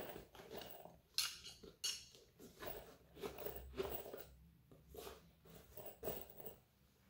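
Pliers and other hand tools being slid into and pulled from the pouches of a poly ripstop tool belt: fabric rustling with several sharp metal clicks and clinks.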